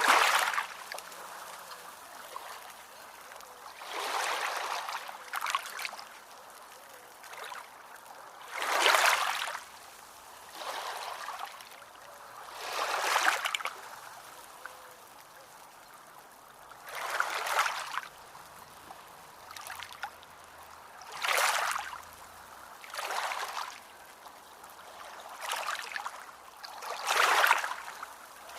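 Small ocean waves washing in, with a hissing rush of water that swells and fades every two to four seconds, about a dozen times, and almost no deep rumble.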